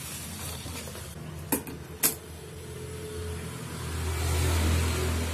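Electric motor of an old sewing machine humming steadily, with two sharp clicks about a second and a half and two seconds in; near the end the hum swells louder as the machine is run.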